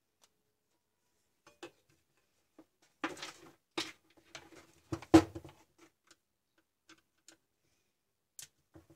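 Workbench handling noise: scattered clicks and knocks as a plug, a screwdriver and a large angle grinder are set down and moved on a wooden bench. The loudest is a heavier knock about five seconds in, as the grinder is turned over. After that come a few light taps of the screwdriver at the grinder's housing screws.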